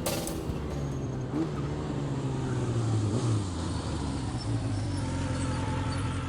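A car engine running at a steady level, its pitch drifting up slightly and settling again partway through.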